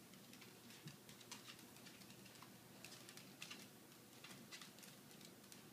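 Faint, irregular light clicks of animal claws tapping on a hardwood floor, against near silence.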